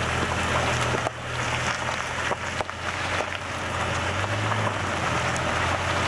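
1998 Jeep Cherokee's right front tyre rolling over a sandy, gravelly dirt trail, a steady crunching rumble with a few small stones popping, over a steady low engine drone.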